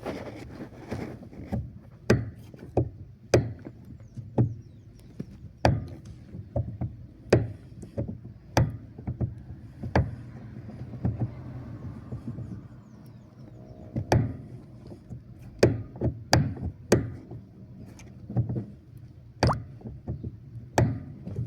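Repeated sharp knocks from the steering of a Chevrolet Onix turbo, coming irregularly about once a second, over the steady hum of its idling three-cylinder engine. The knocking is the steering noise the car was brought in for.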